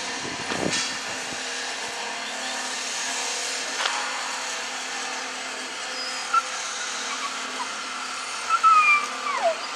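A steady mechanical hum with no clear rhythm. A few short, high, squeaky calls cut through from about six seconds in, the loudest near the end, sliding down in pitch.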